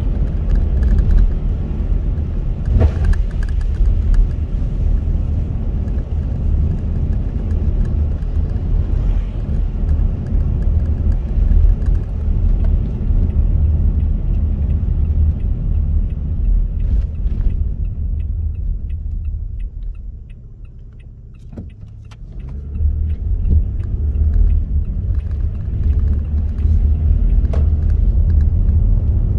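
Road noise inside a moving car on a wet road: a steady low rumble of tyres and engine with hiss above it. About twenty seconds in it fades to a quieter spell as the car slows almost to a stop, with faint regular ticking, then builds again as the car pulls away.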